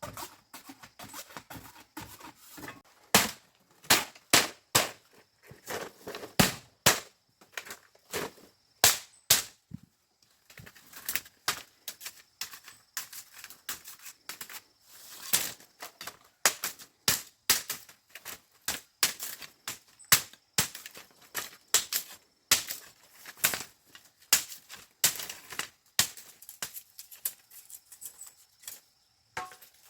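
A long run of sharp knocks or cracks, irregular and often one to three a second, with short pauses around ten seconds in and again near the end.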